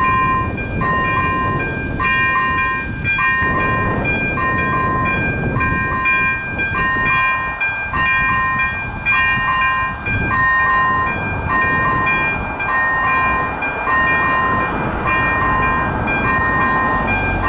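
Railway level-crossing electronic warning bell ringing a steady, evenly repeated ding, the crossing signalling that a train is approaching.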